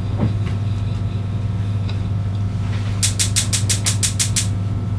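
Steady low mechanical hum like a running motor. About three seconds in comes a quick run of roughly eight sharp clicks, about five a second, lasting a second and a half.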